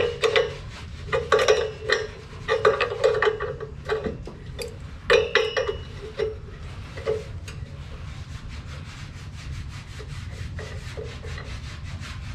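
Hands working a metal fitting off an air compressor's pump head: clusters of quick clicking, scraping and rattling of metal parts over the first seven seconds or so, then quieter, occasional handling.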